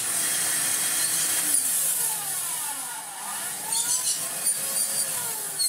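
Electrolux Turbomatic Z380 vacuum cleaner motor running with a loud rush of air. About two seconds in it drops in speed, then its whine slides down and up several times as the motor speed wavers rather than holding steady.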